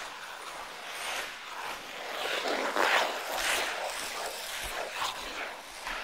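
Ice skate blades scraping and gliding on rink ice in a run of strokes, the loudest about halfway through.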